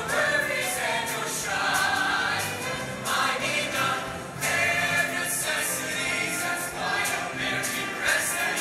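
Large mixed show choir singing in harmony over a live instrumental band, with a steady percussion beat.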